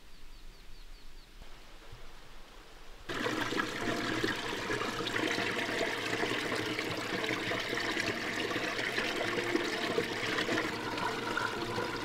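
Shallow mountain stream running over rocks and ice, a steady rushing and gurgling that starts abruptly about three seconds in.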